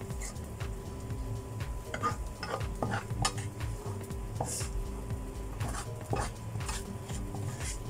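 Spatula scraping and clinking against a stainless steel frying pan, scooping fried peanuts and anchovies out into a bowl in a run of short, irregular scrapes.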